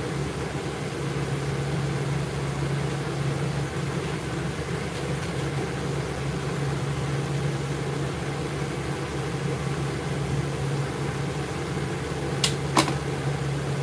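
Steady whir of an electric blower motor with rushing air, as from a pet grooming dryer running in a grooming salon. Two sharp clicks near the end.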